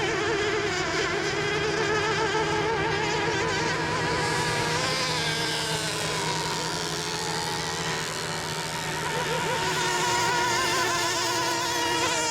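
Several radio-controlled racing boats running flat out together, their motors making a high-pitched, buzzing whine whose pitches waver and drift as the boats race.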